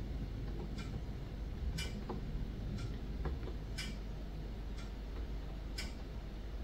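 A clock ticking, one tick a second, with louder and softer ticks alternating, over a low steady rumble.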